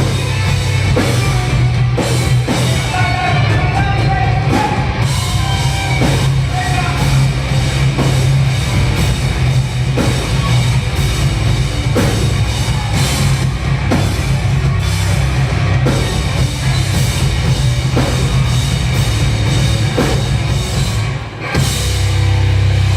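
Heavy rock band playing live at full volume, the drum kit hitting on a steady beat under heavy bass, with singing over it. The music dips briefly about a second and a half before the end, then comes back in.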